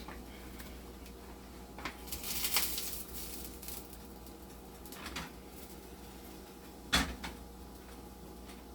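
Kitchen handling sounds: a click followed by a brief hiss or rustle about two seconds in, a softer knock about five seconds in and a sharp knock about seven seconds in, like a cupboard door or pan being handled.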